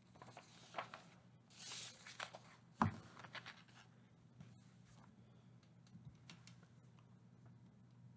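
Faint handling noises at a computer desk: a brief rustle, scattered small clicks and taps, and one sharper knock about three seconds in, over a low steady hum.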